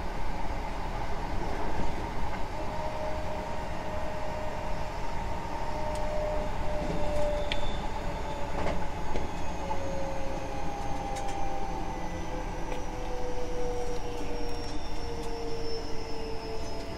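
Hankyu 9000 series electric train heard from inside the car while running: a low rumble of wheels on rail with the motor whine gliding slowly down in pitch as the train slows. Scattered sharp clicks come from the wheels and track.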